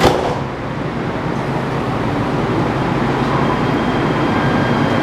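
Metro light-rail train running underground: a steady rumble with a low hum, a short knock right at the start.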